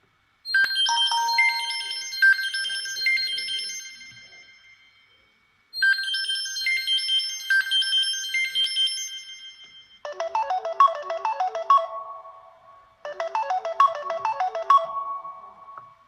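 Samsung Galaxy Note 3 Neo stock ringtone melodies. A high, chiming phrase plays twice, then a quicker run of lower notes plays twice.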